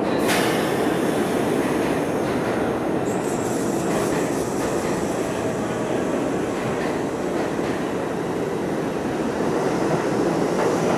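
New York City subway G train pulling out of an underground station: a steady rumble of wheels and motors on the rails. A brief sharp sound comes at the very start, and a thin high-pitched tone joins about three seconds in.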